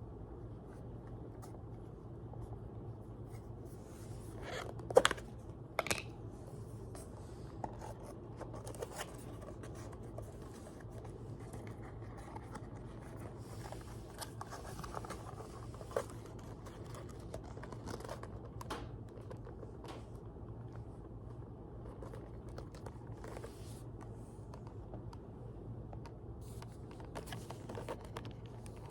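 Packaging being handled and opened by hand: cutting, tearing, scraping and crinkling, with a few sharp clicks about five, six and sixteen seconds in.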